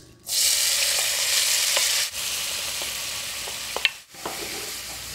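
Diced onion and grated carrot sizzling as they hit hot bacon fat in an enamelled cast-iron pot, stirred with a wooden spoon with a few light taps. The sizzle starts suddenly about a quarter second in, is loudest at first and settles lower after about two seconds.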